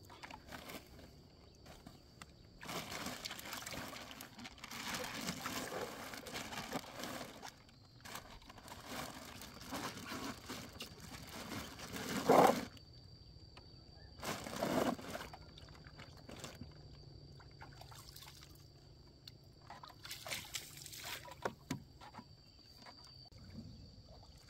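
Water sloshing and trickling in a small boat as a wet fishing net and its catch are handled, in several spells of splashy noise, the loudest about twelve seconds in.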